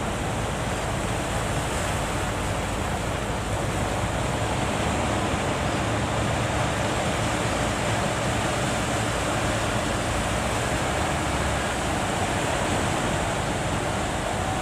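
Surf at a river mouth: waves breaking, heard as a steady rushing noise.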